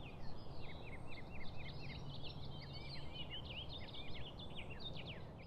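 Many small birds chirping in quick, overlapping high notes that sweep downward, over a faint low rumble of outdoor background noise; it fades out at the end.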